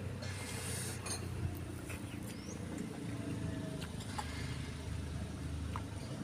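Low steady rumble of a motor vehicle or road traffic, with a few light clinks of a spoon against a bowl.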